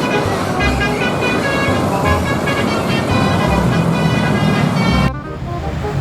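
Background music with a steady beat over vehicle and traffic noise. The sound thins abruptly about five seconds in.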